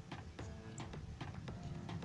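Quiet background music with short notes over a light ticking beat.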